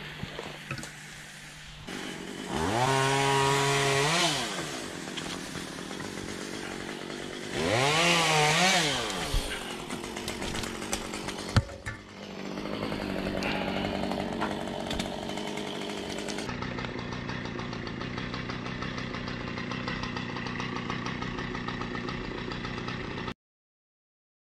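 Chainsaw revved up twice, each time for about two seconds, its pitch rising, holding and falling away, then running steadily at a lower speed. The sound cuts off abruptly near the end.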